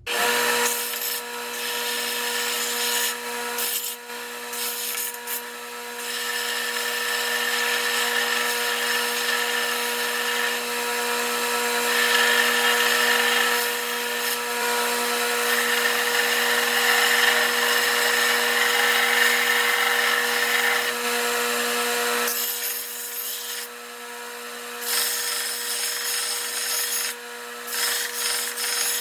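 Electric sander running with a steady motor hum while a hardened S-series tool-steel axe eye drift is ground against the abrasive. The grinding noise swells and eases as the piece is worked, dropping briefly a few times, with a longer break about three quarters of the way through.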